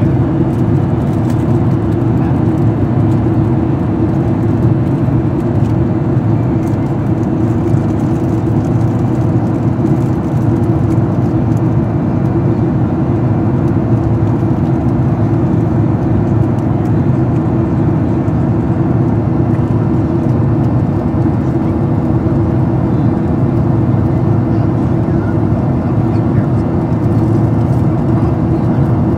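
Steady cabin drone of a Boeing 737-800's CFM56-7B turbofan engines during the climb after takeoff, heard from a window seat beside the wing: an even, low rumble with a constant hum.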